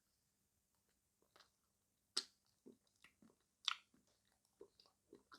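Short clicks and taps of cutlery working a slice of chocolate cream cake, starting about a second in, with two louder ones near the middle.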